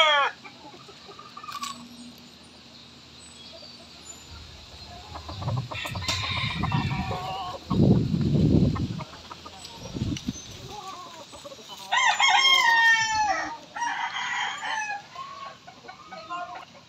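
A rooster crows once, about three-quarters of the way through, followed by a shorter, rougher call. Before the crow there is a stretch of low rumbling noise.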